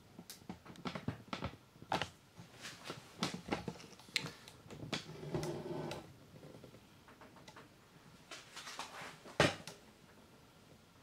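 Light handling noises: scattered soft clicks and knocks, the loudest a sharp knock about nine seconds in.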